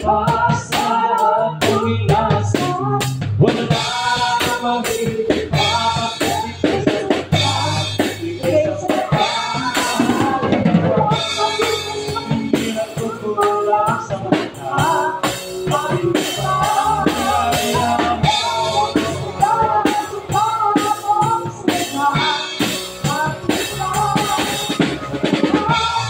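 Acoustic drum kit played in a steady, busy beat, with snare, bass drum and cymbal hits throughout. A melody line runs over the drums as part of live band music.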